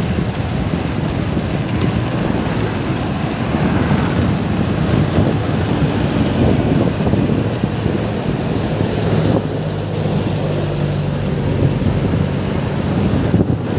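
Wind buffeting the microphone on a moving bicycle, mixed with road traffic; a steady engine hum comes in about ten seconds in.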